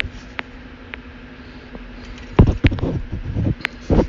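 Handling noise from a plastic smoke alarm housing being turned over in the hands: a few scattered light clicks, then a cluster of knocks and clatter about two and a half seconds in and again near the end, over a faint steady hum.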